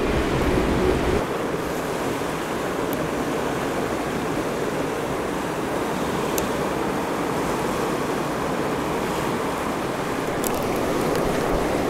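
Fast river rapids rushing steadily, with wind rumbling on the microphone for about the first second.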